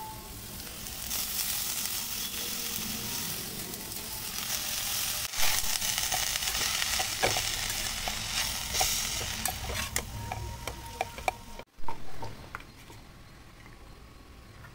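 Chopped spring onions sizzling in a hot pan on the stove, with repeated clicks and scrapes of a spatula stirring them against the pan. The sizzling cuts off abruptly about twelve seconds in, followed by a single loud knock and then a quieter stretch with a few light clicks.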